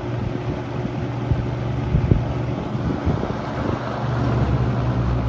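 Toastmaster 4425 box fan running: a steady motor hum under the rush of air from the blade, with a few short knocks in the first half.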